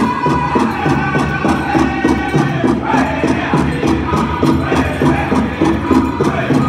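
Powwow drum group singing a fancy shawl song in high, chanting voices over a fast, even drumbeat of about four strokes a second.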